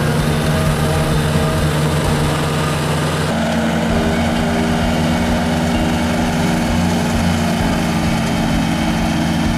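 Grillo FD 2200TS ride-on front-deck mower's engine running steadily, its note changing abruptly about three seconds in.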